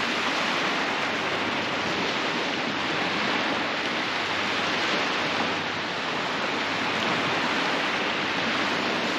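Steady rush of surf washing onto the beach, a continuous hiss with a slight dip about six seconds in.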